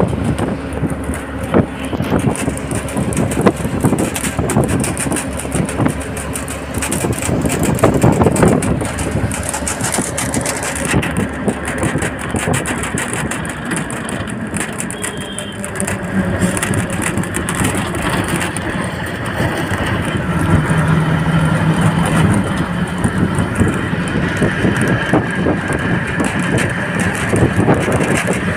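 A bus driving at speed, heard from inside through the open window: engine running under loud road and wind noise, with many short rattles from the bus body throughout.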